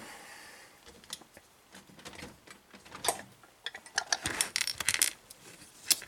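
Scattered metallic clicks and clinks as a heavy vintage padlock is handled and clamped into a small bench vise. A quick cluster of knocks comes about four seconds in, and a single sharp click comes near the end.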